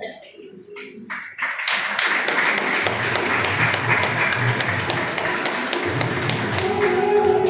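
Audience clapping, with music coming in under it: a low drum beat about three seconds in and a melody near the end.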